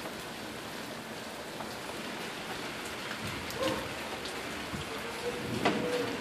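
Steady heavy rain from a thunderstorm, with many individual drops striking a surface close by as separate ticks.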